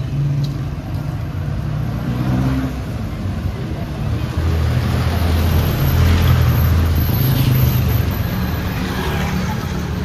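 City street traffic: motor vehicle engines running close by, one growing louder from about halfway through before easing off again, with faint voices in the background.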